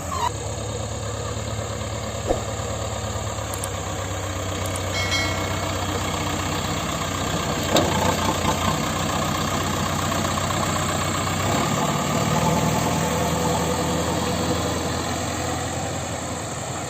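Large diesel engine of heavy machinery running steadily, with its note changing about eleven seconds in. There are a few short knocks along the way.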